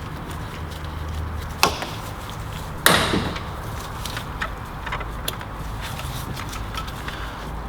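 Clicks and knocks of hands and tools working the blow-off valve hose off the intake pipe, with two sharper knocks about one and a half and three seconds in, the second louder and ringing briefly.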